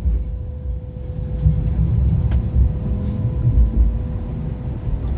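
Hong Kong Light Rail Phase I car running along the track: a steady low rumble of wheels and running gear, with a faint steady whine over it and a couple of light clicks.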